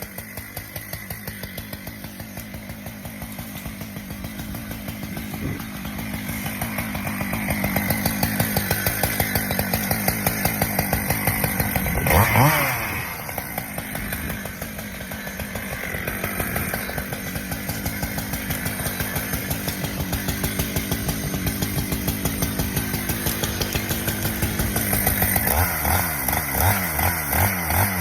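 Husqvarna two-stroke chainsaw running and cutting through saplings and brush, its engine revving up and down. There is one sharp rev up and back down about twelve seconds in.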